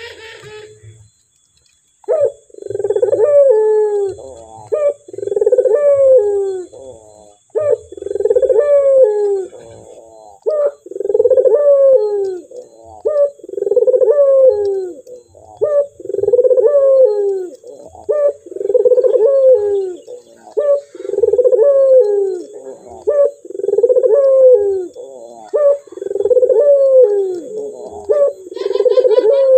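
Male ringneck (Barbary) dove cooing: a clear, rolling coo repeated steadily about every two and a half seconds, starting about two seconds in.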